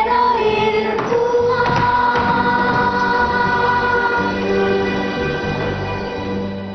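Music with voices singing long held notes, fading out near the end.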